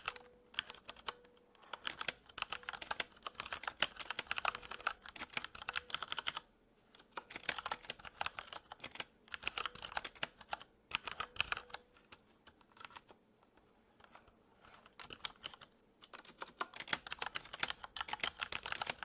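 Computer keyboard being typed on in quick runs of keystrokes, broken by short pauses.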